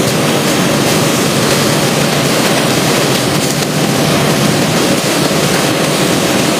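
Steady, loud rushing of running water in a vegetable-washing line, where halved napa cabbages are being washed in water troughs.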